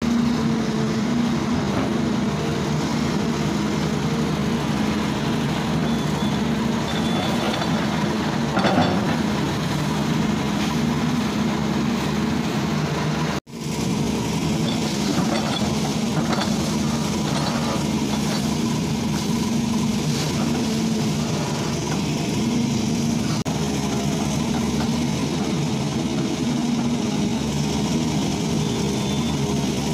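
Volvo crawler excavator's diesel engine running steadily as the boom and bucket work, with a brief dropout about halfway through.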